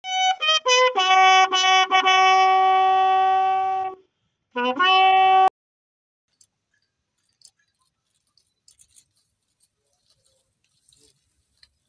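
Military bugle sounding a salute call for the fallen: a few short notes stepping down, then long held notes and a rising note, cut off abruptly about halfway through. After that, near silence with a few faint clicks.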